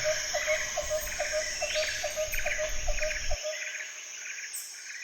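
Night ambience sound effect of crickets and other insects chirping: a steady high trill with a short repeated chirp about four times a second. A low background rumble stops about three and a half seconds in, and the whole bed fades out near the end.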